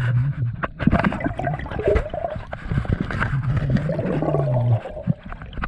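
Muffled underwater sound picked up by a submerged action camera: water gurgling and sloshing around the housing, with many small knocks and a low intermittent hum.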